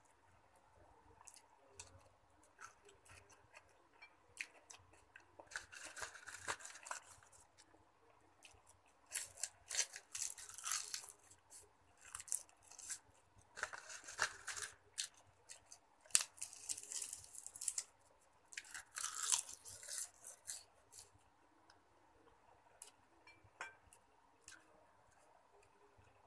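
Close-up crunchy chewing of cooked cabbage and carrot, coming in several bouts of a second or two each, with light clicks in between as chopsticks touch the glass bowl.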